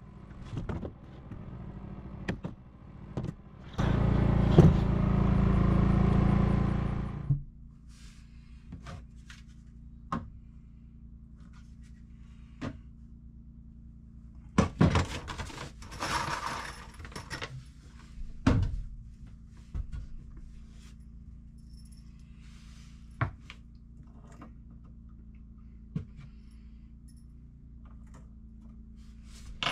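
Woodworking knocks and clicks: a hammer tapping a 2x4 cabinet frame, then tools and boards being handled, over a low steady hum. The loudest thing is a steady rushing noise lasting about three seconds, starting about four seconds in.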